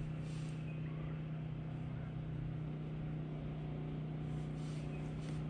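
A boat motor running with a steady, even hum.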